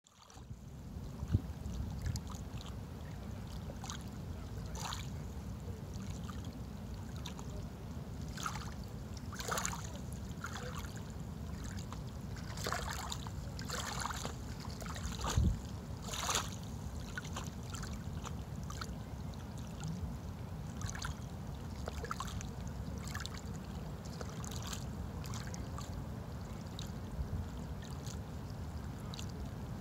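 Shallow water lapping and trickling over a pebble bed, with small irregular splashes, busiest about a third to halfway through, over a steady low rumble.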